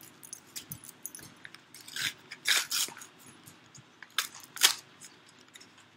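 Stiff plastic blister packaging crackling and clicking as it is pried and pulled open by hand, with a few louder cracks about two seconds in and again past four seconds.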